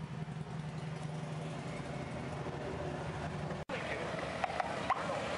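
A steady low hum, then a sudden cut about three and a half seconds in to an outdoor crowd: people talking, with motorcycles running on the road and a few short knocks.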